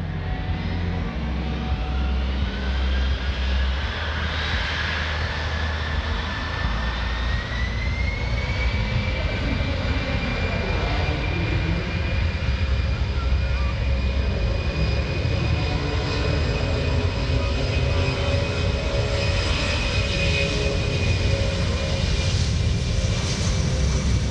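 C-17 Globemaster III's four Pratt & Whitney F117 turbofans spooling up to takeoff power, their whine rising over the first several seconds and then holding steady under a loud roar as the jet runs down the runway on its takeoff roll.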